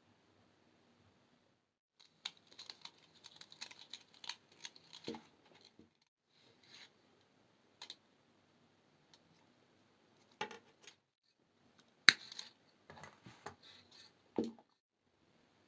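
Close-up handling noises of jewellery-making materials: scattered small clicks, taps and scratchy rustles in two bursts, with one sharp click about twelve seconds in.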